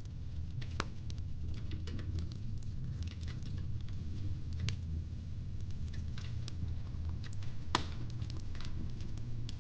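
Wood fire crackling in a fire pit: irregular sharp pops and snaps, one louder snap near the end, over a steady low rumble.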